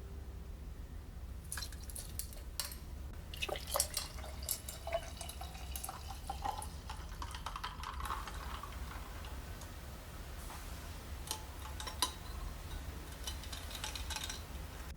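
Liquid being poured and dripping into a glass container, its pitch rising as it fills, with small clicks and clinks of glass.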